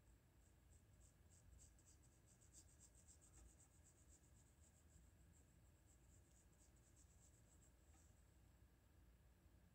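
Faint scratching of a 2H graphite pencil on Strathmore drawing paper, made in quick short strokes several times a second. The strokes stop a little before the end.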